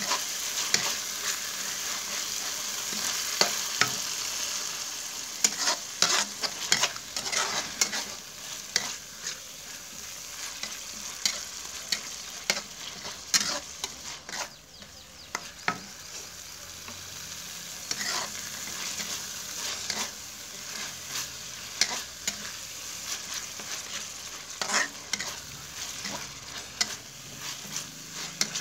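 Chili sambal sizzling as it is sautéed in hot oil to cook it until fragrant, with a spatula scraping and knocking against the pan at irregular intervals. The sizzle eases a little about eight seconds in.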